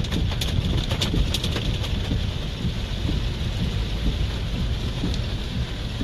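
Heavy typhoon rain and wind, a steady rumbling wash with wind buffeting the microphone, and a few sharp ticks of drops striking in the first second or so.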